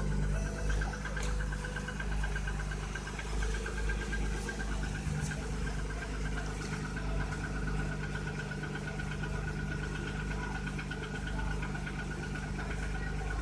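Audi A6 C4's 2.6 V6 engine idling cold, with a rapid, even knocking that keeps pace with the engine.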